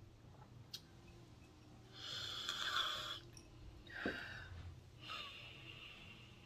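A person breathing hard through the nose three times, the first long and loudest, then two shorter: clearing a bothersome, blocked-feeling nose.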